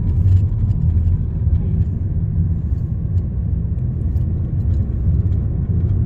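Steady low rumble of engine and road noise inside a moving car's cabin.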